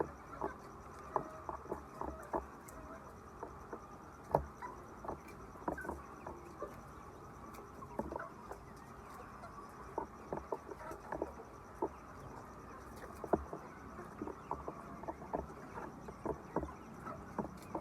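Hens in a poultry house: many irregular sharp taps and clicks, a few a second, with occasional soft clucks over a steady low background.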